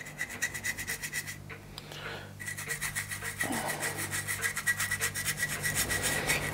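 A small hand brush scrubbing the painted sheet-metal firebox of a model steam engine in quick back-and-forth strokes, working off paint softened by oven cleaner. There is a short pause about one and a half seconds in, then the scrubbing picks up again.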